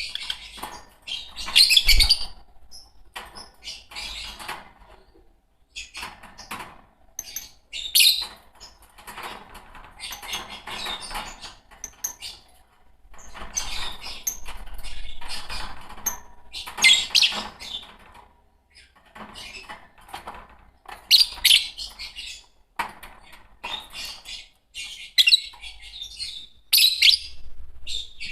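A pair of Fischer's lovebirds chirping and squawking: shrill, high-pitched calls in irregular bursts with short pauses between them.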